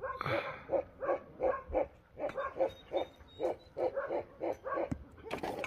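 A dog barking rapidly and repeatedly, about four or five short barks a second, with a brief pause about two seconds in.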